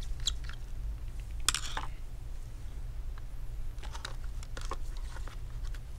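Light scattered clicks and taps of a laptop hard drive and its plastic and metal bay being handled as the drive is taken out, the loudest cluster about a second and a half in. A steady low hum runs underneath.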